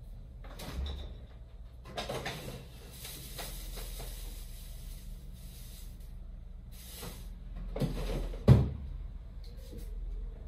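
A few scattered kitchen knocks and clunks, the loudest and sharpest about eight and a half seconds in.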